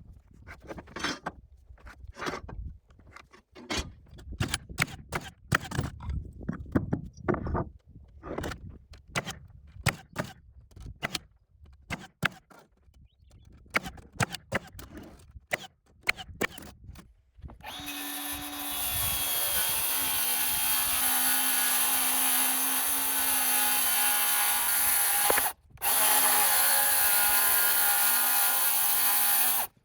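Scattered knocks and clatter for over half the time, then a power tool starts and runs steadily, stopping for a moment and starting again before cutting off at the end.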